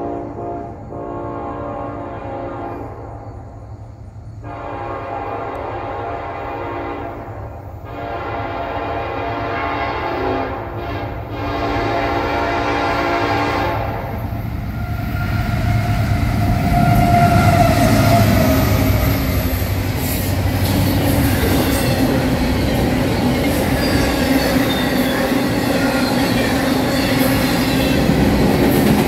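Norfolk Southern freight train's locomotive air horn sounding several long blasts as the train approaches. About halfway through, the diesel locomotives rumble past, and the double-stack intermodal cars then roll by with steady wheel-on-rail clatter.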